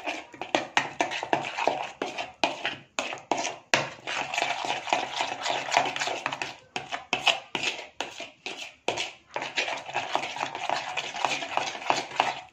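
Steel spoon stirring a thick curd-and-spice marinade in a plastic bowl, with quick irregular scrapes and clicks of the spoon against the bowl.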